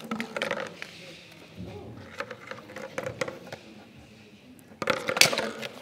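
Indistinct voices in a hall, with a few light clicks and knocks.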